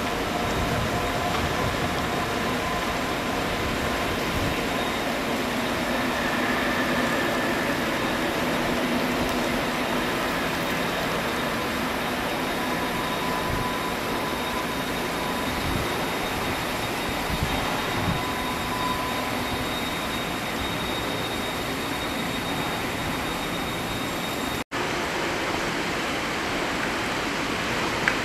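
Locomotive-hauled train with the Oya 31 clearance test car running past at a distance: a steady rolling rumble of wheels on rails with faint thin squealing tones. The sound cuts out for an instant near the end.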